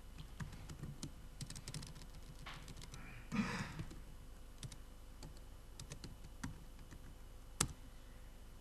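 Faint typing on a laptop keyboard: scattered, irregular key clicks. There is a short louder rustle about three and a half seconds in and a single sharper click near the end.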